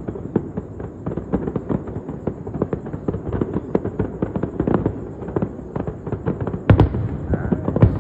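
Fireworks display: a dense, rapid crackle of many small reports, with a louder, deeper bang near the end.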